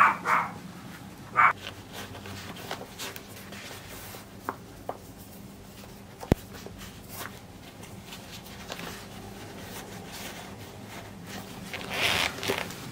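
Someone putting on and lacing up suede sneakers: soft rustling and scuffing of shoes, laces and clothing, with scattered small clicks, a sharp click about six seconds in, and a longer rustle near the end.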